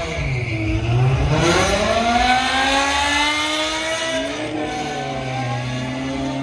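A car accelerating hard down a drag strip. Its engine note climbs steeply for about two seconds, then dips and climbs again.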